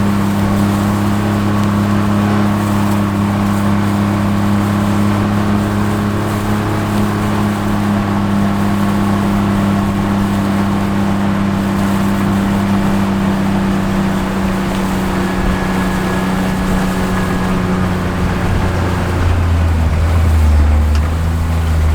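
A vehicle engine running at a steady speed. Near the end its pitch shifts lower and it gets a little louder.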